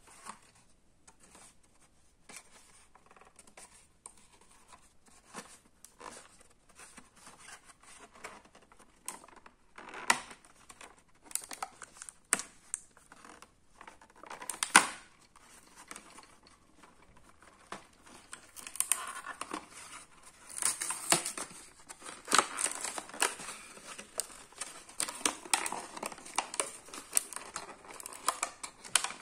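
A clear plastic blister pack and its printed card backing being handled and pulled apart: irregular crinkling, crackling and tearing. There are a few sharp snaps, the loudest about fifteen seconds in, and the crinkling grows busier in the second half.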